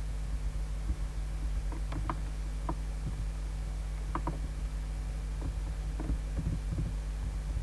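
Scattered clicks of a computer mouse and keyboard, some in quick pairs, over a steady low electrical hum.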